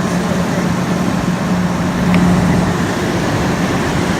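Emerson Quiet Kool 11,500 BTU through-the-wall air conditioner running on high cool, compressor on: a loud, steady rush of fan air over a steady low hum.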